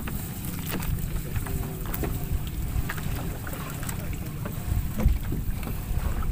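Wind buffeting the microphone in an irregular low rumble, over light rustling and short knocks of a wet gill net being hauled by hand over the side of a boat.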